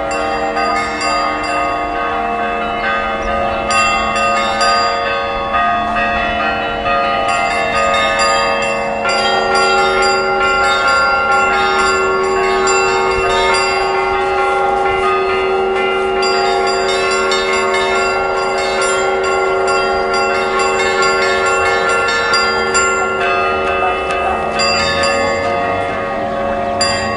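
Several church bells ringing together, their strikes overlapping into a continuous peal of many sustained tones at a steady loudness.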